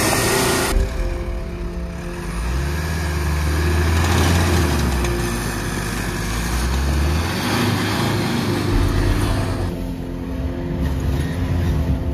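Pickup truck engine running as it drives through deep snow, with background music underneath; the sound changes abruptly about a second in and again near the end.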